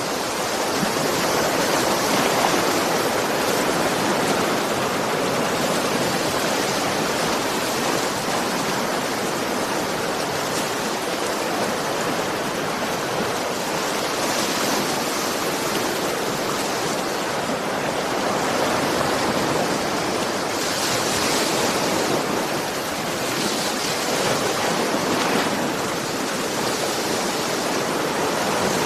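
Ocean waves: a continuous rush of surf, swelling brighter and falling back every few seconds.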